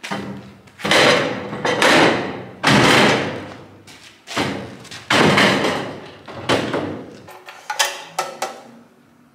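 Aluminium loading ramps clanging and ringing as they are slid out and set onto the back of a trailer: a run of loud metal bangs about a second apart. A few lighter clicks follow near the end.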